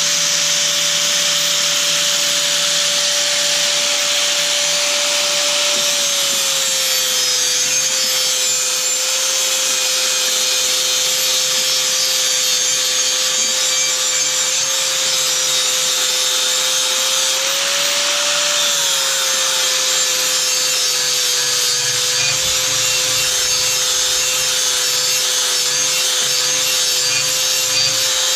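Angle grinder with a 36-grit flap disc grinding the cutting edge of a steel lawn mower blade: a steady motor whine over a hissing grind. The whine drops in pitch as the disc is pressed into the steel about six seconds in, lifts briefly around eighteen seconds in as the pressure eases, then settles lower again.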